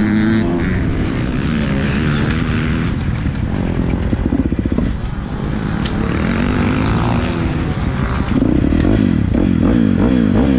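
Motocross bike engines running close by at low revs with small throttle blips; from about eight seconds in they get louder and the revs rise and fall repeatedly.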